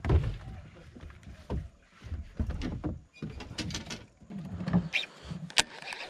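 Irregular knocks, clicks and low thumps of people moving about and handling gear aboard a small fibreglass skiff, with one loud sharp click a little before the end.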